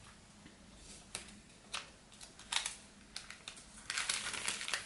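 Faint scattered clicks and light paper rustles of hands handling sticker paper over a planner, growing busier about four seconds in.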